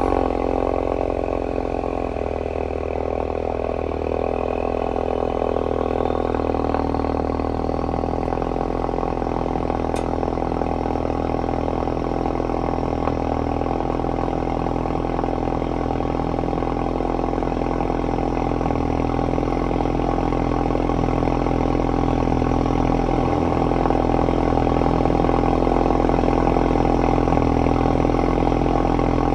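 Car engine idling steadily, an even low hum that never revs.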